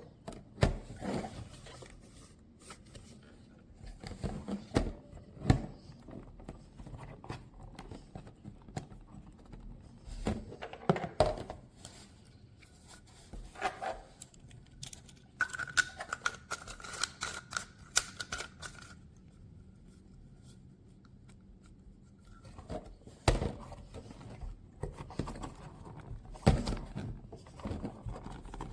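Irregular clicks, taps and rustling of objects being handled, with a faint steady high tone for a few seconds about midway.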